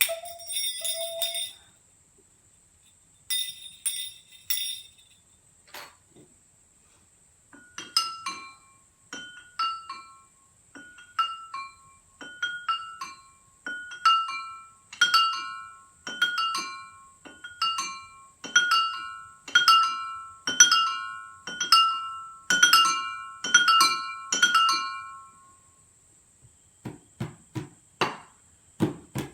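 Drinking glasses struck in a steady run, ringing clinks on a few fixed pitches about twice a second, growing louder as they go, after a few bright bell-like strikes in the first seconds. Near the end soft foot taps take over.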